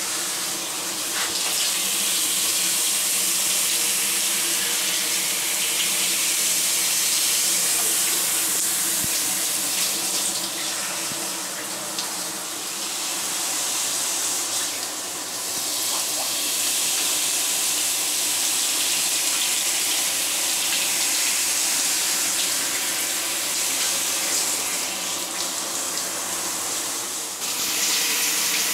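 Shower spray running steadily and splashing into a bathtub and over a wet cat held under it. The hiss of the water softens briefly a few times.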